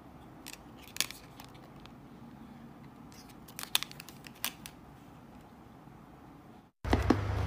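Faint handling of photocards: a few light clicks and rustles as two cards are held up, slid against each other and laid down. Music starts suddenly near the end.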